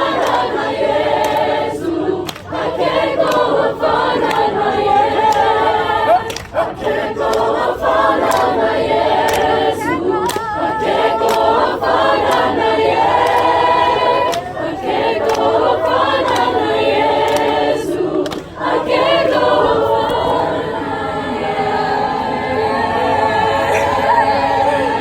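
Youth choir singing sustained phrases, with short breaks between phrases about every four seconds.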